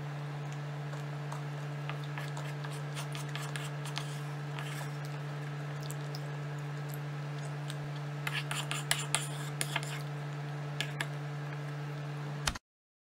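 Wooden spoon scraping and clicking against a wooden bowl as yogurt is scooped out, with a cluster of sharper scrapes and taps about eight to ten seconds in, over a steady low hum. The sound cuts off suddenly near the end.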